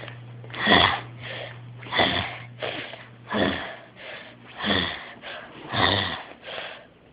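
A person's breathy huffs, about one a second in a steady rhythm.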